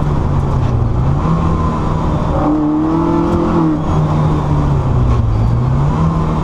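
Car engine heard from inside the cabin under hard driving. Its note rises and falls as the throttle is worked, over steady road and wind noise.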